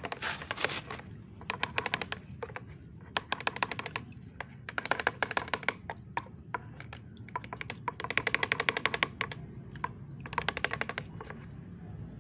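A mesh hand net of harvested bloodworms jiggled in a bucket of water, giving bouts of rapid clicking and splashing, about six bouts of a second or so each. The shaking rinses moss and debris out of the worms.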